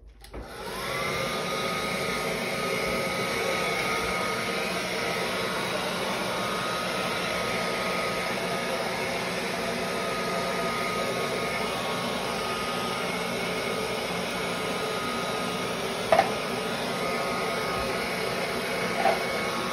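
Handheld hair dryer switched on and blowing steadily, a rushing noise with a whine that rises briefly as the motor spins up and then holds steady. Two short sharp sounds cut through late on.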